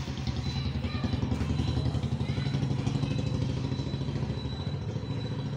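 A small engine idling steadily, a low pulsing hum, with a thin high whine coming in about half a second in and faint voices in the background.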